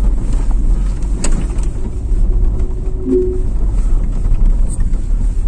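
A car driving slowly, its engine and tyre rumble heard from inside the cabin, with a few light knocks.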